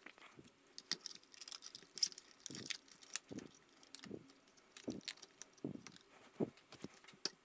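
Faint, irregular light clicks, taps and small knocks of a plastic electronics case, its back plate and wires being handled.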